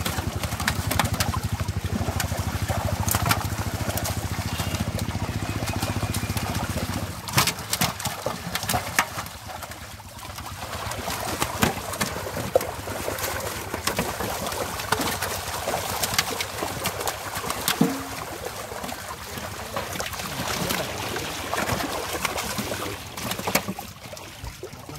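Live fish thrashing in a seine net drawn tight in shallow pond water: sloshing water and many short, sharp splashes. A low, steady engine hum runs underneath at first and stops about seven seconds in.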